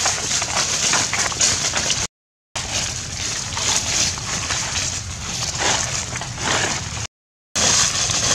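Dry fallen leaves crackling and rustling under footsteps, a dense irregular crunching. The sound cuts out completely twice for about half a second, about two seconds in and about seven seconds in.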